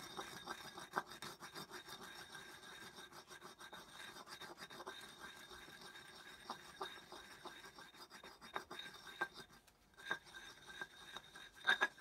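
Stone pestle grinding and scraping dried dyestuff into a red powder inside a rough volcanic-stone mortar (molcajete), in a run of irregular rubbing strokes with a short lull a little before the end.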